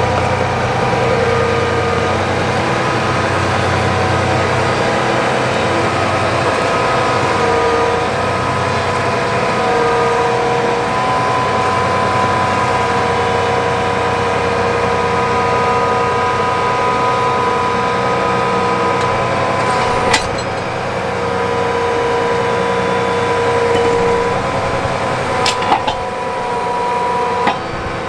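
Large farm tractor's diesel engine running steadily at close range, with a steady whine over it. A few sharp knocks come through about two-thirds of the way in and near the end.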